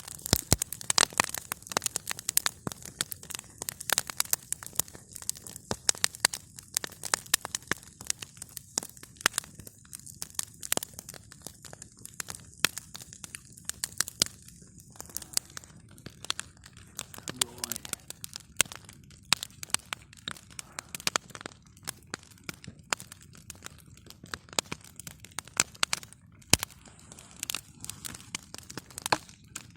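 Wood campfire burning, with irregular sharp cracks and pops of burning wood over a soft steady hiss of flame.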